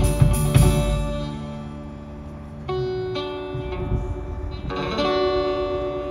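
A band's closing bars: the last crashes of the drum kit in the first second, then guitar chords struck a few times and left to ring out and fade as the song ends.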